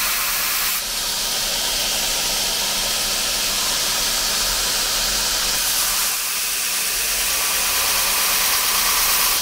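AmeriBrade belt grinder running with a steady hiss as a hardened steel knife blade, clamped in a grinding jig, is ground against the abrasive belt.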